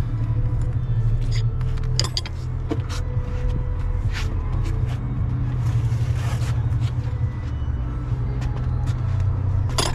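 A steady low engine rumble, as of a vehicle idling close by, with a few sharp metallic clinks from tools and parts being handled.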